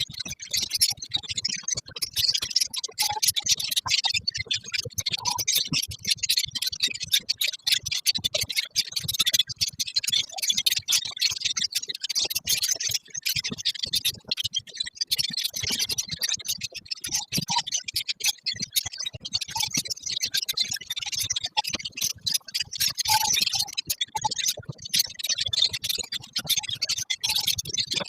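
A colony of lovebirds chattering together: a dense, unbroken stream of rapid high-pitched chirps and clicks.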